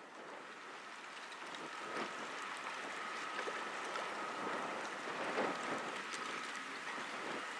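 River water splashing and lapping as a small cargo ship passes, fading in over the first two seconds, with a few louder splashes and a faint steady high whine running through it.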